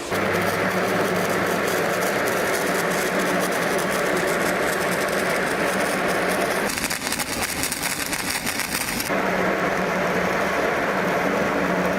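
Electric arc (stick) welding: the arc starts suddenly and then crackles and sputters steadily, turning hissier for a couple of seconds partway through, over a low steady hum.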